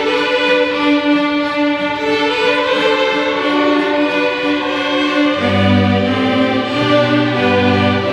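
School string orchestra playing a slow piece in long, sustained bowed notes. Low cello and bass notes come in about five seconds in.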